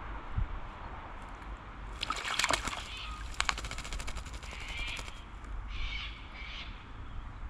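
Wattlebirds splashing in a bird bath, a loud run of flicks and splashes for about three seconds from two seconds in. Short harsh wattlebird calls come several times, the last two near the end.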